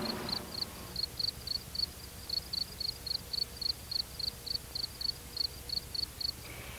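Cricket chirping, an even run of short high chirps at about four a second, stopping near the end.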